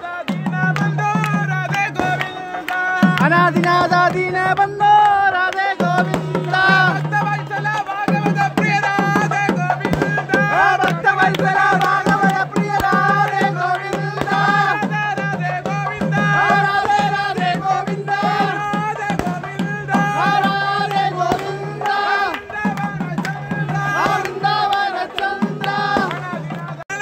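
Nadaswaram and thavil temple ensemble playing. Reedy pipes carry a wavering, ornamented melody over a low held drone, with quick drum strokes underneath. The drone drops out briefly a few times.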